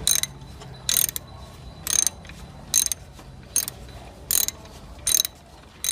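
A hand tool working metal in a steady rhythm: about eight short rasping strokes, one every three quarters of a second, each with a metallic ring.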